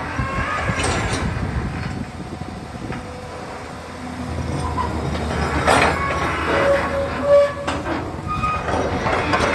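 Long-reach excavator running under load as its long arm lifts the bucket up out of the ditch, a steady low machine drone with short high metal squeals and a couple of sharp clanks from the arm and bucket linkage.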